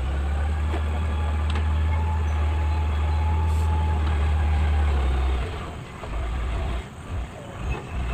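Motor grader's diesel engine running as the machine drives down a mound of loose earth: a steady low rumble that falls away and turns uneven about two-thirds of the way through.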